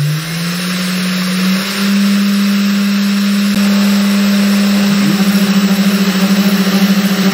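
CNC router spindle motor spinning up, its whine rising in pitch over the first second or two and then running steady at speed. About halfway in there is a click and a lower hum joins, and later the tone begins to pulse quickly.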